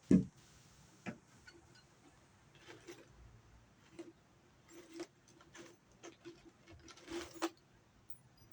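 Scattered light clicks and knocks of tools or hardware being handled, with a sharper knock at the start and another about a second in.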